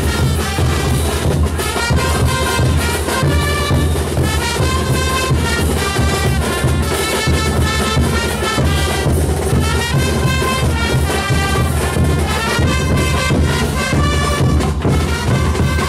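Bolivian brass band playing caporales music: trumpets, trombones, baritone horns and sousaphones carry the melody and bass over large bass drums keeping a steady beat.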